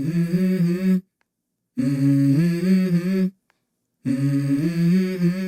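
Opening of a song: a hummed vocal melody of long held notes stepping between a few pitches. It cuts off to complete silence about a second in and again just after three seconds, then resumes.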